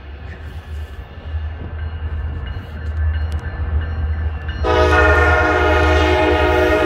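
CSX diesel freight locomotive's air horn starts a long, loud, steady blast about two-thirds of the way in as the train approaches the grade crossing, over a low rumble.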